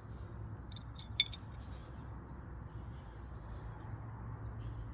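Small steel hand tools, Allen keys among them, clinking as they are handled and set down: a few light clinks in the first second and a half, one sharper than the rest. A cricket trills faintly and steadily underneath.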